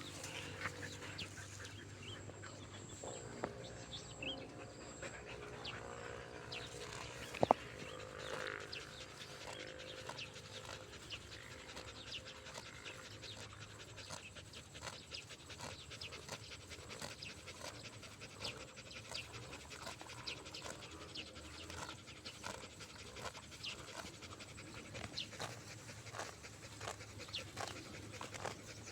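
A dog panting, tired out, with one sharp click about seven seconds in.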